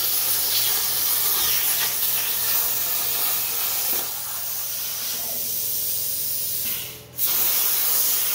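Hypertherm Powermax45 XP plasma torch on a CNC table cutting steel sheet: a steady hiss of the air plasma arc. About seven seconds in the hiss fades out briefly and comes straight back as the arc restarts.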